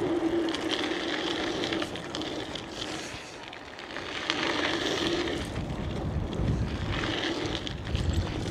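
Bicycle being ridden: tyre noise and wind on the chest-mounted camera's microphone, with a steady hum that comes and goes several times.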